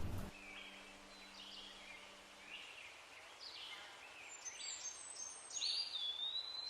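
Forest birds singing faintly: short calls repeated about once a second, with a longer whistled note that slides down and holds steady near the end.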